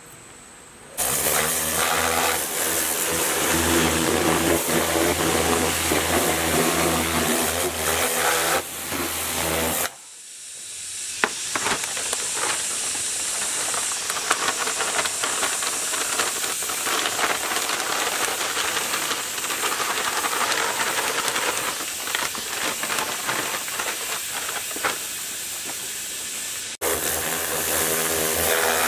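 An engine running steadily, cut off sharply about a third of the way in. A long steady hiss follows, and the engine sound returns near the end.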